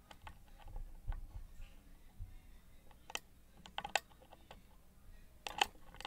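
Dimple pick working the pins of a Miwa JN (Kaba 20) dimple lock cylinder under tension: a string of small, sharp metallic clicks and scrapes, coming in denser clusters about three and four seconds in and again near the end.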